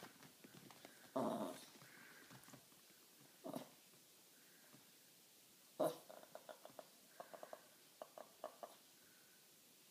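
Mini Jack Russell terrier growling and grumbling rather than barking, stirred up at the sight of another dog. One louder burst about a second in and two shorter ones, then a string of short, quick growly sounds in the second half.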